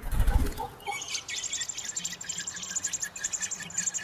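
Birds chirping: a dense run of short, high, rapidly repeated notes that starts about a second in, after a brief low rumble.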